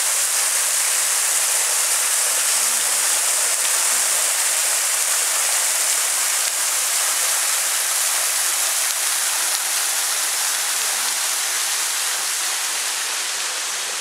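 Low-flow waterfall: a thin stream of water falls over mossy tufa rock and splashes onto stones, making a steady, hissing rush that fades a little near the end.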